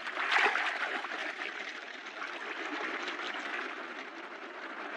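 Moving water, an even rushing hiss with no clear pitch, loudest in the first second and then settling to a steady, lower wash.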